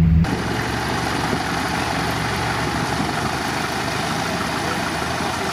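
GAZ-63 truck's engine running steadily as it tows a stuck car out of swamp water, under an even, steady hiss.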